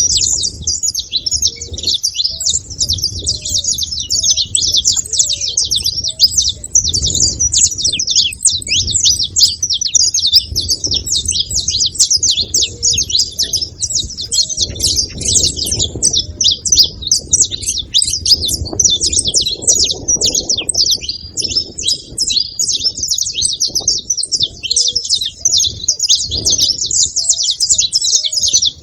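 Saffron finch (canário-da-terra) calling and singing: a dense, unbroken stream of rapid, high chirps and trills, over a fainter low rumble.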